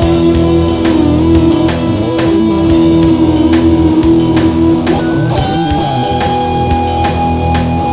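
Music: a long held note over a steady beat, changing to a higher held note about halfway through.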